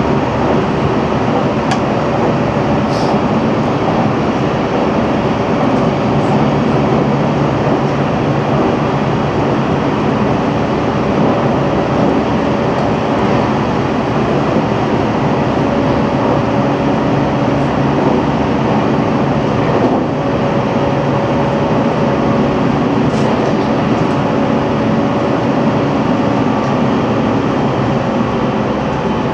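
JR Central 313 series electric train running on the rails, its traction motors humming steadily over the rumble of the wheels, with a few light clicks.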